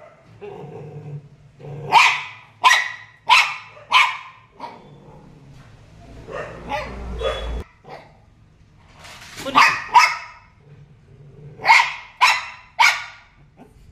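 Large white long-haired dog barking at a cat in short, sharp barks, in groups: a run of four barks about two seconds in, two more near the middle, then three near the end, with quieter sounds in between.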